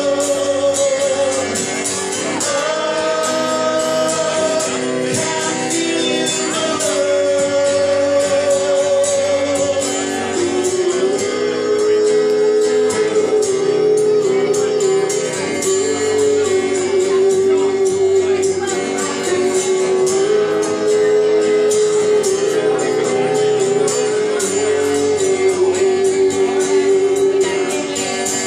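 A man singing live over his own strummed acoustic guitar, amplified. The vocal holds long notes of a couple of seconds each, several with a wavering vibrato, over steady strumming.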